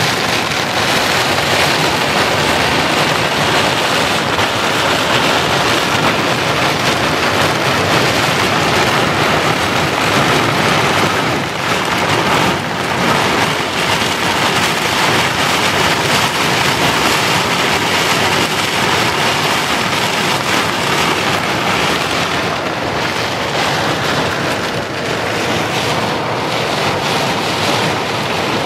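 Torrential rain falling heavily on a car's roof and windows, heard from inside the car, with strong wind: a loud, steady rush of rain.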